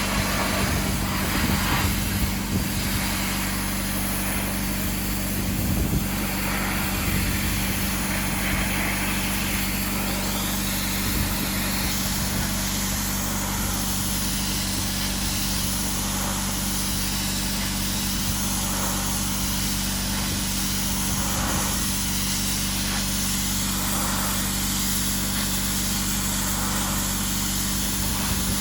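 Sandblasting equipment running steadily: an even hiss of blasting air over a constant electric motor hum.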